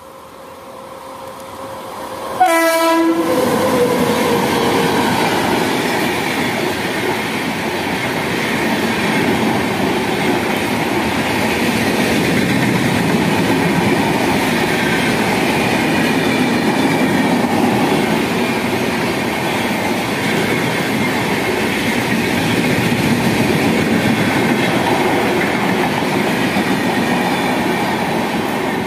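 Indian Railways express train, an electric locomotive hauling red passenger coaches, passing at high speed. The locomotive sounds a short horn blast about two and a half seconds in, and the passing coaches then make a loud, steady rumble and rail clatter.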